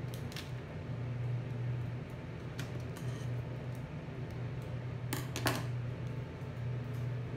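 A roll of adhesive tape being picked at and cut with scissors: scattered small clicks, then two sharp snaps a little past five seconds in, over a steady low hum.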